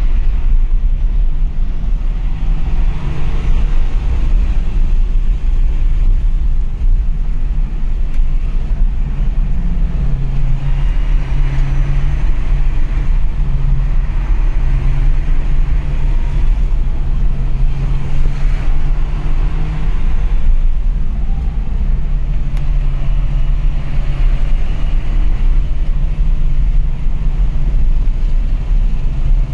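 A BMW's engine and road noise heard from inside its cabin at track speed: a heavy, steady low rumble with the engine note stepping up and down.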